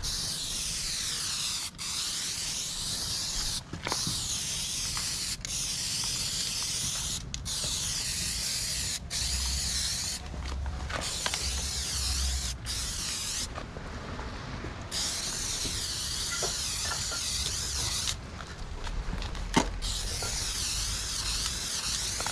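Aerosol spray paint can hissing in long bursts, broken about ten times by brief releases of the nozzle, as paint lines are sprayed onto a wall. A sharp knock comes near the end.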